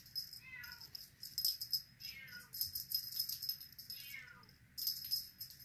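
A small rattle shaken in quick bursts, over and over, with a bright jingling ring. Under it, a silver Bengal kitten gives three faint mews, each falling in pitch.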